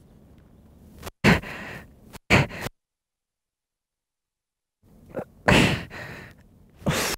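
A man's pained cries and gasps in short bursts that start and stop abruptly: two sharp ones about a second in, then dead silence, then a longer groaning stretch near the end.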